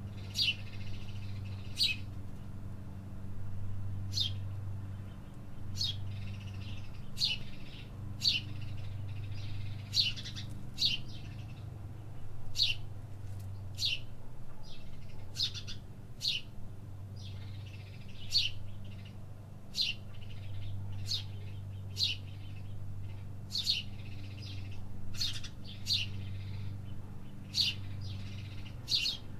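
Small birds chirping: short, sharp, high chirps repeated about once a second, some in quick pairs. A steady low hum runs underneath.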